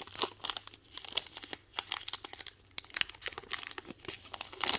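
Foil wrapper of a Digimon Card Game booster pack crinkling and tearing as it is opened by hand, an irregular crackle.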